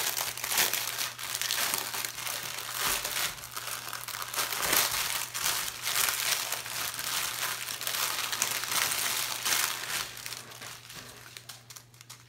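Clear plastic bags crinkling as they are handled: a bag of diamond painting drills is pulled open and the small zip-lock bags of drills are spread out and sorted. The crinkling runs thick for most of the stretch and dies down near the end.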